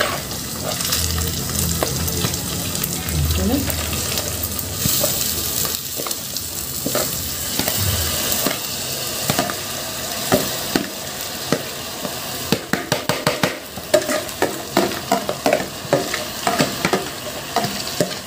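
Drained, damp freekeh sizzling in a pan with frying onions while it is stirred with a spoon. From about halfway, the spoon scrapes and taps against the pan over and over.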